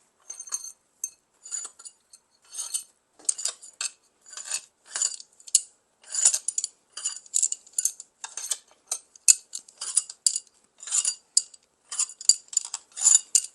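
Loose steel bolts from a Mazda 13B rotary engine clinking against each other and against metal as they are taken out and gathered by hand, with a sharp metallic clink about every half second, more often toward the end.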